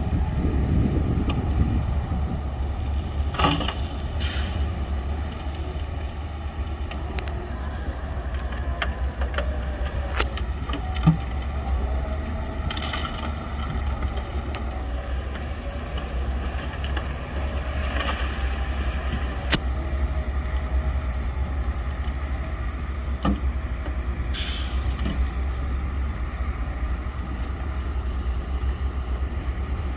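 Heavy diesel earthmoving machinery running with a steady low rumble. A few short hissing bursts and sharp clicks break in now and then.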